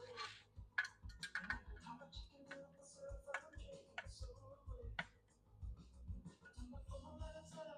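Scattered light clicks and taps of parts and hand tools being handled during reassembly, with faint background music.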